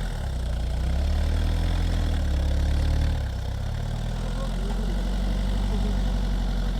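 Engine of a vehicle running steadily at low revs, its note dropping slightly about three seconds in.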